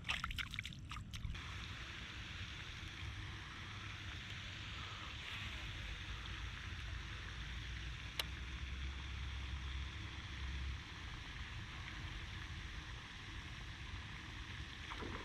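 Steady outdoor rushing noise with a low rumble that eases off after about eleven seconds, a few light clicks at the start and a single sharp click about eight seconds in.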